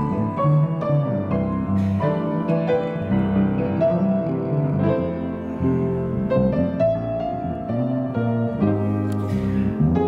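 Instrumental music led by piano, with notes changing every fraction of a second over a moving low bass line.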